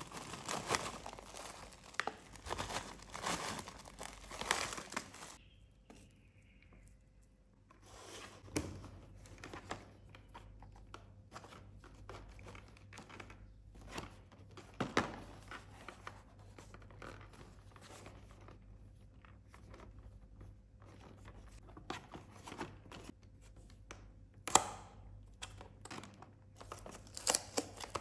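Plastic snack bag crinkling as it is handled for the first few seconds, then a cardboard cookie box rustling in the hands. Near the end its perforated tear strip is ripped open in sharp tears.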